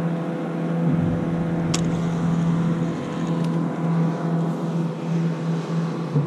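A boat motor running steadily, a constant-pitched drone that holds the same note throughout, with one light click about two seconds in.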